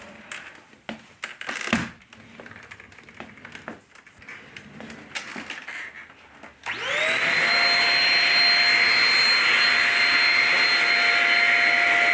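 Scattered clicks and knocks of handling, then about two-thirds of the way through a Shark Rocket self-cleaning stick vacuum is switched on. Its motor spins up within a moment to a steady, loud high whine and keeps running.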